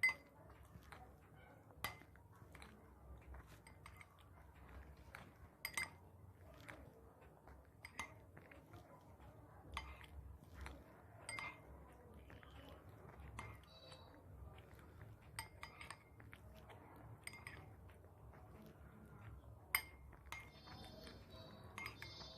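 Scattered light clinks of tableware against a plate, about one every second or two, with faint chewing between them.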